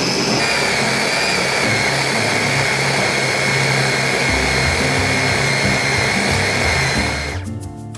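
Electric mini food chopper running steadily with a high whine as it minces raw chicken and prawn into a paste; the whine dips slightly in pitch about half a second in, and the motor stops near the end.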